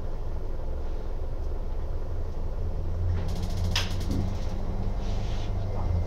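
Small electric water pump running steadily, pushing water through the circuit. About three seconds in comes a quick train of clicks from the propane instant water heater's igniter sparking as the burner lights.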